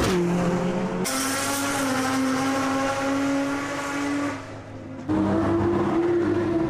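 Car engines running at speed on a race circuit, heard in three short cuts. Each is a steady engine note; the middle one is the longest and brightest, and it fades briefly before another car's note comes in near the end.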